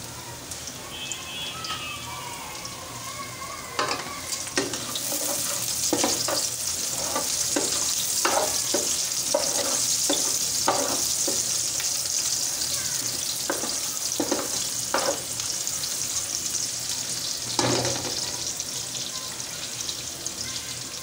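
Sliced onions and whole spices sizzling in hot oil in an aluminium pot, stirred with a wooden spatula that scrapes and knocks against the pot. The sizzle grows louder about five seconds in.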